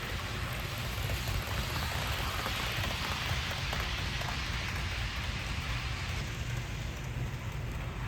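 HO-scale model train running steadily along the track: a low motor hum under a constant rolling hiss and crackle of small metal wheels on the rails.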